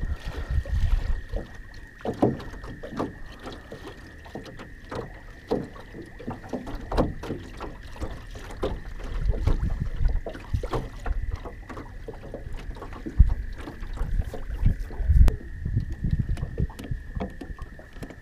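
Minn Kota electric trolling motor running with a steady high whine, while water slaps and knocks irregularly against the aluminium hull of the jon boat.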